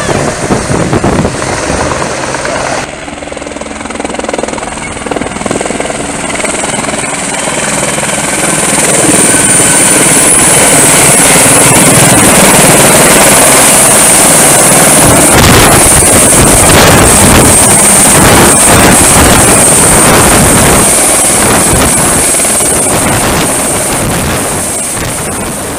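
Firefighting helicopter hovering low over the water while its bucket fills: a steady high turbine whine over the rhythmic beat of the main rotor blades. It grows louder as the helicopter comes in close and fades near the end as it pulls away.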